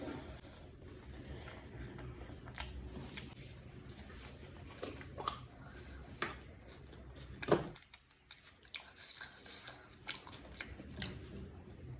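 Close-miked chewing of chicken biryani, with irregular wet mouth clicks and smacks and one sharper, louder click about seven and a half seconds in.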